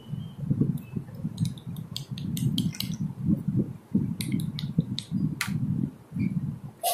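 Plastic action figures being handled right at the microphone: irregular muffled bumps and rubbing, with many short sharp plastic clicks and taps.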